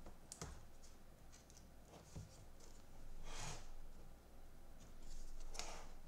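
Laptop hinge being pressed down into place on the base: a few faint clicks, then two short, soft rushing noises.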